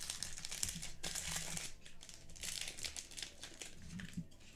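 Foil wrapper of a football trading-card pack crinkling as it is torn open by hand. The crinkling is heaviest in the first second and a half, comes again around the middle, and fades near the end.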